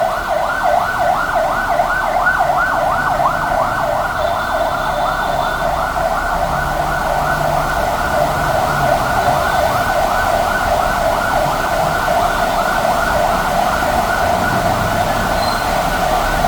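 Ambulance siren wailing in a fast, steady yelp, rising and falling about four times a second without a break.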